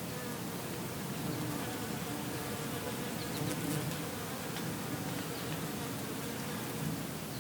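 Bees buzzing close by, a wavering wingbeat hum that swells and fades as they move about.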